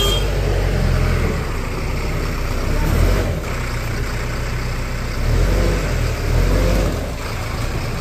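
Diesel engine of a Bull backhoe loader running under load, revving up and easing off several times as the front loader bucket lifts and tips soil.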